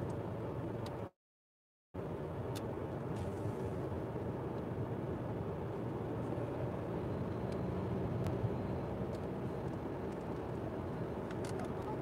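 Steady road and engine noise inside a moving car's cabin. About a second in, the sound cuts out completely for under a second, a dropout in the live stream's connection.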